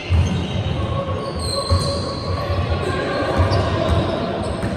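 Basketball play on a wooden sports-hall court: repeated low thuds of the ball bouncing and players' running feet, echoing in the large hall.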